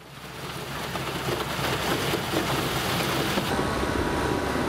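Rotary snowplow at work, its blower casting snow out through the chute: a steady rushing noise over a low rumble, fading in over the first second or so.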